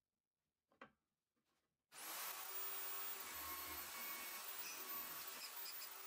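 Electric drill in a wooden drill-press stand starting up about two seconds in and running steadily with a high whine while a 9 mm bit bores through a plywood block, stopping near the end.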